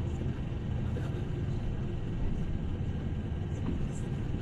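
Steady low rumble of a moving vehicle in city traffic, heard from inside it: engine and road noise.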